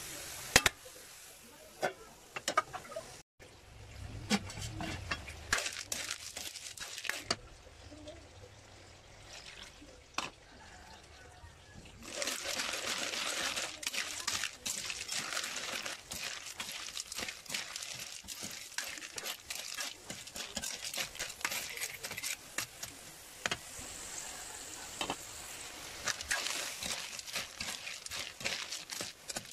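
Metal ladle scraping and clattering through snail shells in a metal wok. About twelve seconds in, coconut milk goes into the hot pan and a steady sizzling hiss sets in, with the stirring clatter going on over it.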